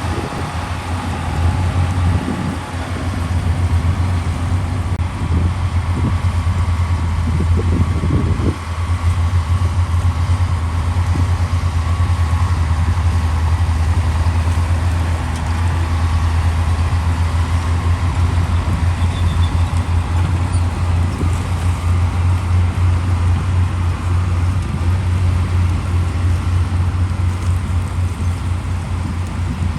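Heavy diesel earthmoving machinery running steadily, a low, unbroken engine drone.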